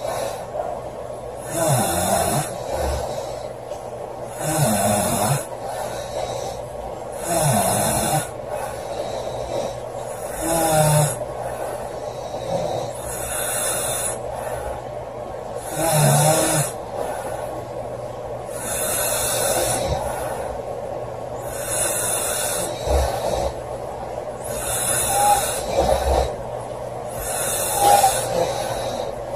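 A woman snoring loudly, a rasping snore with each breath, repeating evenly about every three seconds.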